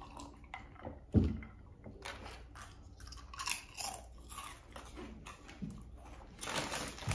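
Close-up mouth sounds of two people sipping and swallowing drinks from mugs, with small wet clicks and smacks, and one sharp low thump about a second in.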